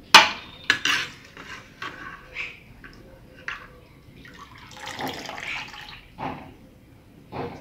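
Wet beef tripe lifted with metal tongs out of a pot of liquid, splashing and dripping back in, with sharp knocks of the tongs against the pot. The loudest comes just at the start, and there is a longer stretch of running drips about five seconds in.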